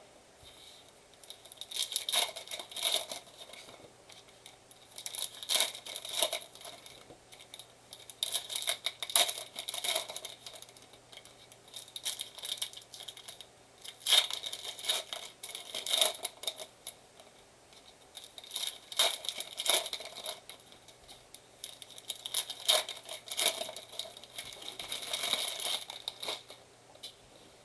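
Plastic trading-card pack wrappers being torn open and crinkled, in repeated bursts of tearing every few seconds.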